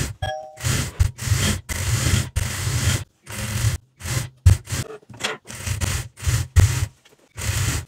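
Juki industrial straight-stitch sewing machine stitching in many short stop-start runs, each a fraction of a second long with a low motor hum under the needle noise, as the fabric is guided and turned between runs.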